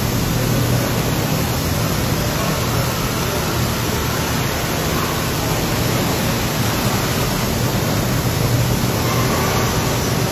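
Automatic tunnel car wash running: water jets spraying and spinning foam brushes scrubbing a truck, a steady rushing hiss with a low hum underneath.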